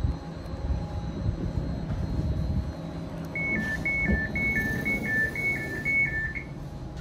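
Passenger-door signal of a Škoda RegioPanter electric train: a high-low two-tone beep repeated about six times over three seconds as the door opens, over a low rumble, with a single thump about four seconds in.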